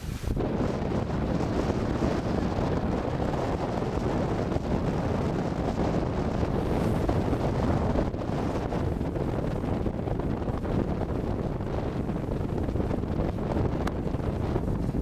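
Steady wind buffeting the microphone aboard a sailboat under sail, with water rushing along the hull underneath.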